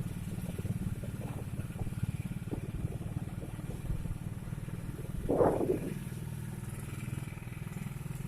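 Motorcycle engine running steadily while riding, with a short louder noise a little past halfway.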